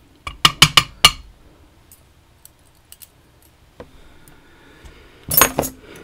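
Small metal lock parts clicking and clinking against a hard surface as the pins are taken out of a lock cylinder. There is a quick run of about five sharp clicks in the first second, a few faint ticks in the middle and a louder cluster of clinks near the end.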